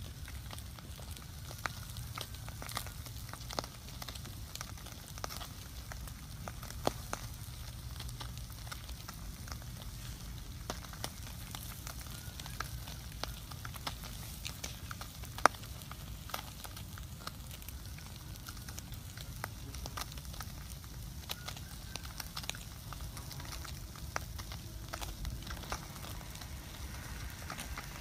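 Small open wood fire crackling, with irregular sharp pops, as fish roast over its embers; a low steady rumble underneath.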